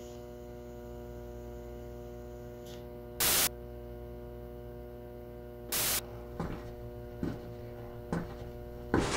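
Steady electrical hum with a stack of even tones, broken by two short, loud bursts of hiss about a third and two-thirds of the way in, then a few light knocks near the end.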